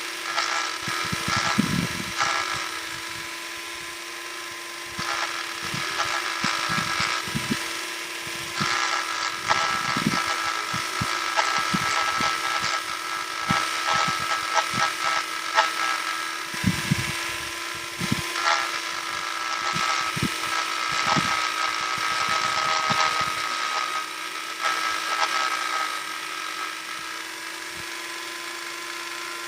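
Electric power sander running with a steady hum, its pad rasping unevenly against the surface, with scattered knocks.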